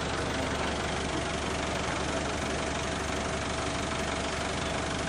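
A vehicle engine running steadily, an even rumbling noise with a constant hum through it.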